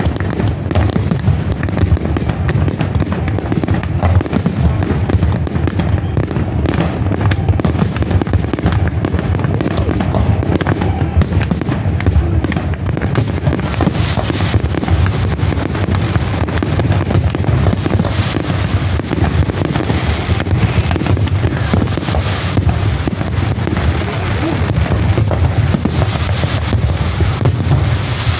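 Aerial fireworks shells bursting in a dense, continuous barrage of overlapping booms and crackles, with no real pause.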